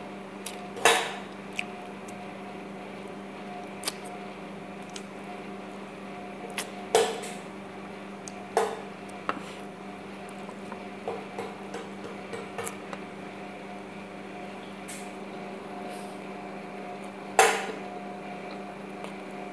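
Eating by hand from ceramic plates: a few sharp clinks and knocks on the plates, loudest about a second in, twice around seven to nine seconds, and near the end, over a steady hum.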